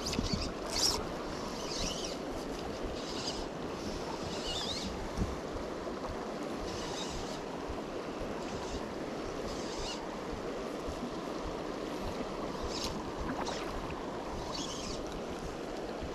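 Steady rushing of a small mountain trout stream, with scattered brief high-pitched sounds over it.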